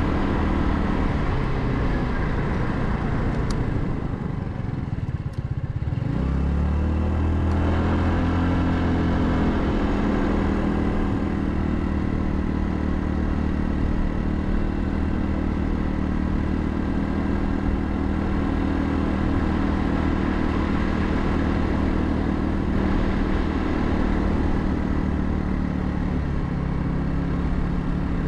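Royal Alloy GT150 scooter's single-cylinder engine running under way. It eases off for a couple of seconds, then picks up with a rising note about six seconds in and settles to a steady cruise.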